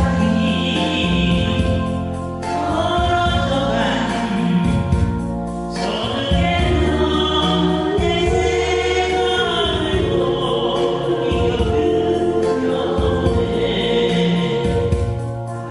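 Several voices singing together over recorded backing music, holding long sung notes.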